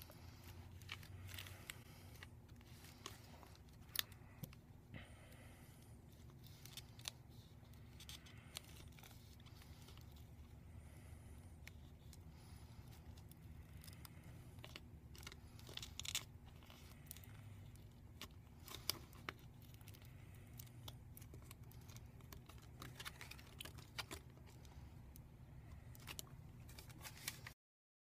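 Faint scraping and crackling of cracked phone glass being slid apart from its adhesive and the LCD with a business card, with scattered small clicks and ticks of glass shards, a few sharper ones now and then.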